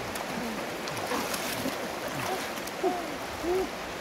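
Steady rush of shallow river water around the wading people's legs and the stones. From about halfway in, a run of short pitched calls, each rising then falling, comes over it.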